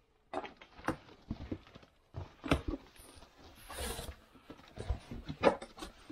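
Cardboard box being handled and opened by hand: irregular knocks and taps on the cardboard, with a scraping rustle of cardboard about four seconds in.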